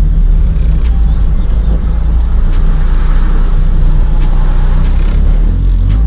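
Turbocharged KA24 four-cylinder engine of a Nissan 240SX (S14) running under way, heard from inside the cabin, with background music with an even beat laid over it. The engine runs without a stumble, which the owner judged good after new ignition coil and distributor connectors.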